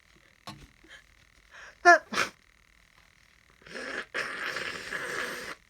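A person with a head cold sneezes once about two seconds in, drawing a quick breath just before it, then blows their nose for nearly two seconds.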